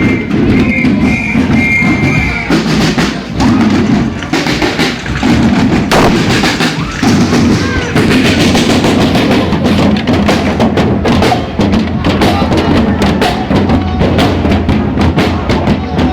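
Marching procession drums beating amid a loud, noisy crowd, with a high held note sounding in the first couple of seconds.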